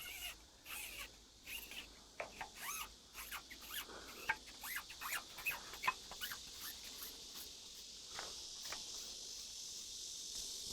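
Yellow-headed catfish out of the water giving a run of short creaking squeaks, the stridulating croak it makes with its pectoral spines when handled. Insects keep up a steady high chirring behind it, a little louder near the end.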